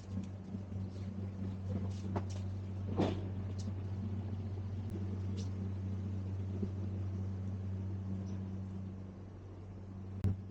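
A steady low hum, with a few light clicks and knocks over it.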